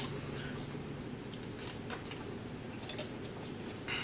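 Quiet room tone: a steady low hum with a few faint, short clicks scattered through it. There is no burp.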